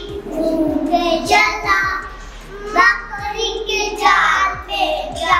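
Young children singing an action song together in high voices.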